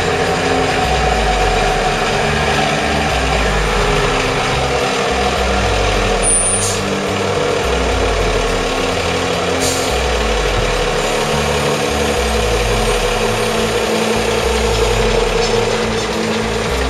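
Heavy boat-stacker forklift's engine running under load as the mast tilts and the long forks are lowered, with a steady tone over the engine and changing low notes as it works.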